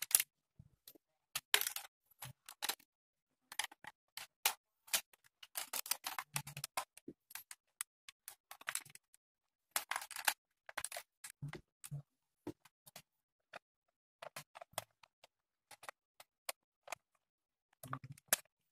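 A small screwdriver clicking and scraping against the screw and hard plastic of a DX Minityra toy's battery cover as it is unscrewed, with handling knocks of the plastic body. Irregular short clicks run throughout, with longer scraping stretches about a second and a half in, around six seconds in, and around ten seconds in.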